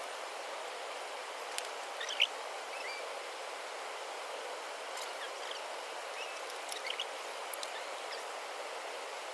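Steady outdoor background noise, like running water or rain, with a few short high chirps and clicks.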